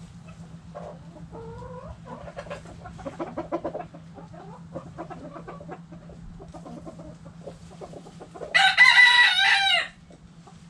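Backyard hens clucking in short, repeated calls, then a rooster crows once near the end, the loudest sound, lasting a little over a second. A steady low hum runs underneath.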